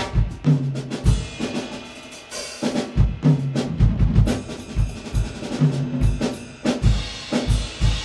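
Background music with a steady drum-kit beat: kick and snare hits over a low bass line.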